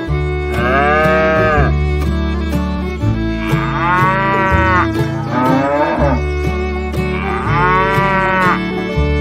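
A cow mooing three times, each moo about a second long and rising then falling in pitch, over background music with a steady bass and beat.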